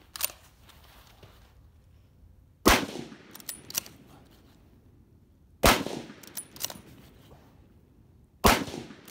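Three rifle shots from a bolt-action .30-06 military rifle, about three seconds apart, each followed by a couple of sharp metallic clicks as the bolt is worked for the next round.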